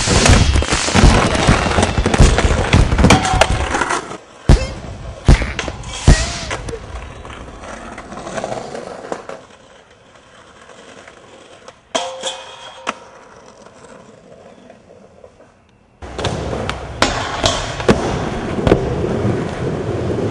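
Skateboarding: urethane wheels rolling on pavement and concrete, with sharp clacks of the board popping and landing. It is loud at first and quieter for a stretch through the middle with only a few clacks, then turns loud again suddenly about four seconds before the end.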